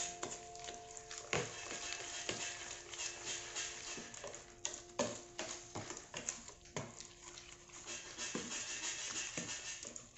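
Wire whisk beating thick oatmeal batter in a plastic tub: a wet, sloshing stir broken by irregular clicks and taps of the whisk wires against the container, under faint background music.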